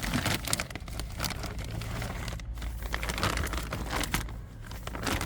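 A parcel being unpacked by hand: packaging crinkling and rustling, with scattered small knocks and clicks as the new control arm is taken out.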